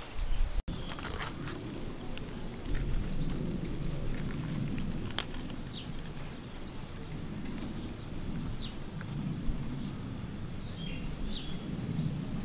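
Outdoor countryside ambience: a low steady background with a high, wavering animal call through the first half and a steadier high call later, plus a few scattered clicks.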